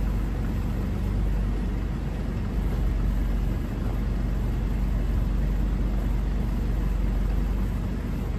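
Car driving on the road, heard from inside the cabin: a steady low rumble of engine and road noise.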